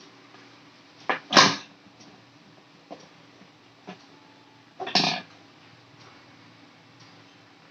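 Tools and a circuit board knocking and clicking during work to remove a swollen filter capacitor from a 12 V power adapter's board. There are two louder, sharp knocks, about a second in and about five seconds in, with a few light ticks between them.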